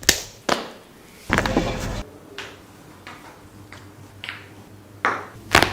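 A series of sharp pops and cracks from joints and skin being cracked during a barber's massage. The loudest come just after the start and about five seconds in, with fainter ones between and a rougher rubbing noise for about half a second near the second mark.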